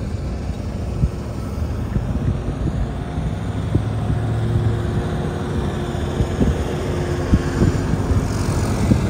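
Steady low rumble of vehicle engines on the runway, with an airliner taking off from the airfield; a hiss swells near the end as the aircraft climbs away.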